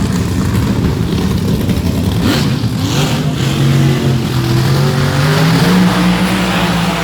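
Drag-race car engine running, its pitch climbing steadily from about two seconds in as it accelerates.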